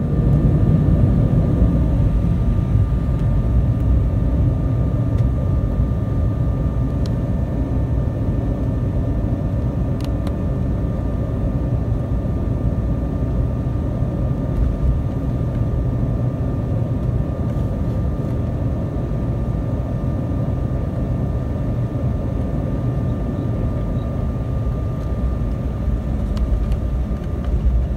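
Cabin noise of an Embraer 190 on the ground: a steady low rumble with the constant hum of its GE CF34 turbofan engines, two thin steady whining tones over it. The rumble steps up at the very start, then holds even.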